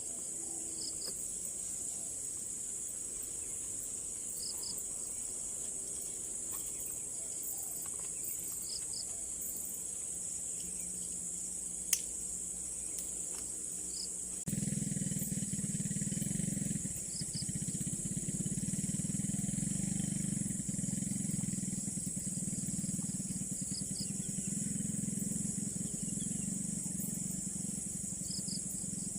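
Steady high-pitched insect chorus of crickets, with short paired chirps every few seconds. About halfway through a louder low hum starts suddenly and carries on, like a distant engine running.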